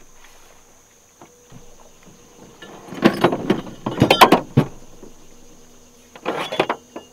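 Hollow knocks, clunks and scrapes of two boat hulls bumping together, an aluminium jon boat against a fibreglass bass boat held alongside by hand. They come in three clusters about three, four and six seconds in; the loudest, around four seconds, has a short metallic ring.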